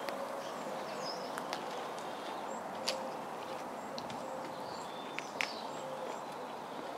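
Outdoor ambience: small birds chirping now and then over a steady hiss, with a few light footsteps on brick paving.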